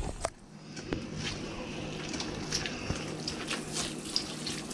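Shredded fresh cabbage being added to a pot of soup: soft rustling and squishing with scattered small clicks and taps.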